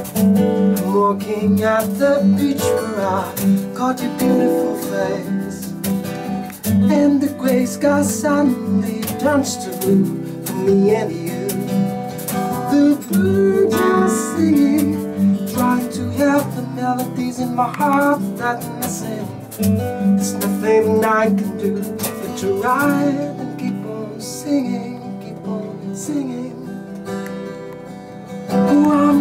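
Several acoustic guitars strummed and picked together in a steady rhythm, with a man singing a melody over them.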